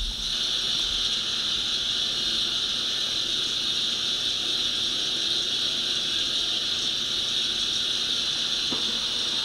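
Steady white-noise hiss from a 4moms baby swing's built-in sound speaker, switched on from the control panel and starting abruptly.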